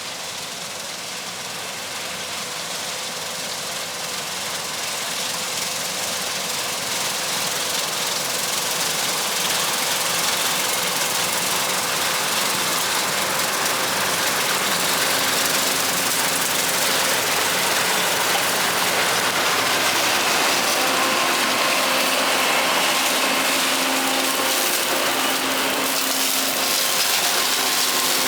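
Combine harvester running steadily while cutting soybeans with a Honey Bee draper header: a continuous machine noise with a faint steady hum, growing gradually louder over the first several seconds and then holding even.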